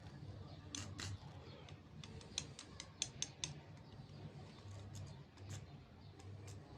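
Low hum that comes and goes, with scattered sharp clicks and ticks, a cluster of them in the middle.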